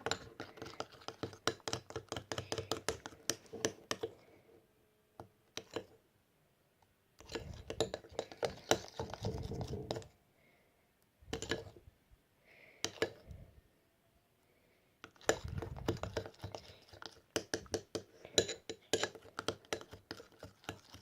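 Spoon clicking and clinking rapidly against a container as slime is worked, in four bursts of a few seconds separated by quiet gaps.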